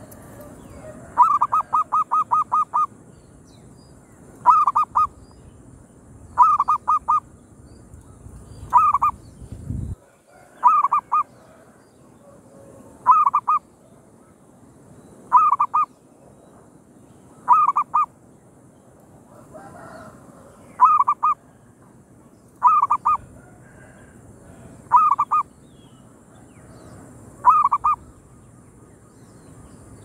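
Zebra dove (perkutut) calling. It opens with a quick run of about seven short notes, then gives short groups of two or three notes, repeated roughly every two seconds.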